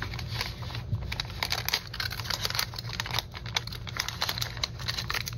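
Brown kraft paper wrapping crinkling and rustling as a package is handled and cut open with scissors, a dense run of small crackles.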